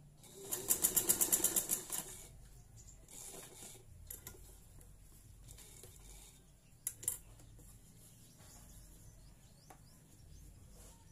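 Straight-stitch sewing machine running in one short burst of rapid, even stitches through fabric for about a second and a half, then stopping. Afterwards only faint handling sounds and a pair of light clicks about two-thirds of the way through.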